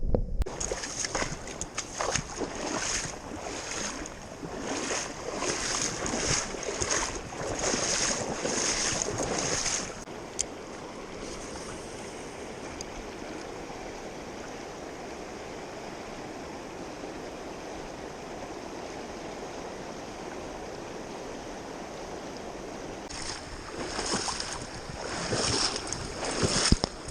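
River water rushing steadily, with repeated surges of splashing for the first ten seconds and again near the end.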